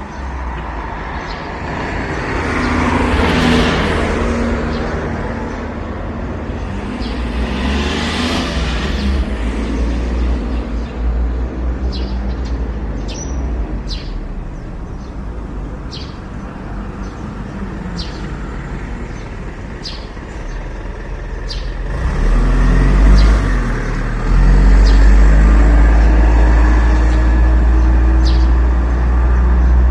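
Road traffic: two vehicles pass by in the first ten seconds, each swelling and fading. Short high bird chirps sound over it. From about 22 seconds in, a heavy vehicle's engine rumbles loudly, its pitch climbing as it accelerates.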